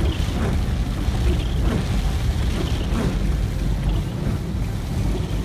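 Car driving through standing water in heavy rain, heard from inside the cabin: a steady rumble of tyres and water spray, with rain beating on the car.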